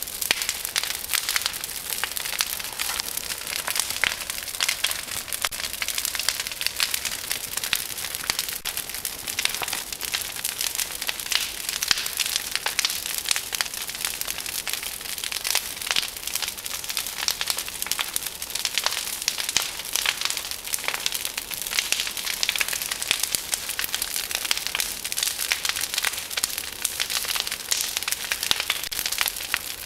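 A large bonfire of brush branches burning, with a dense, continuous crackling of many sharp pops and snaps from the burning twigs.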